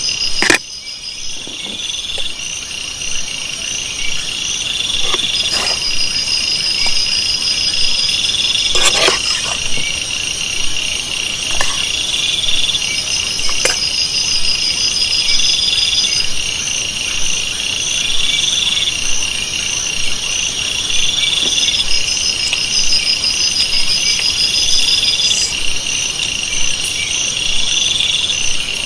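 Dense chorus of crickets and other insects: a steady high trill with pulsed calls repeating every couple of seconds over it. A few sharp knocks or clicks break through, one about half a second in and another around nine seconds.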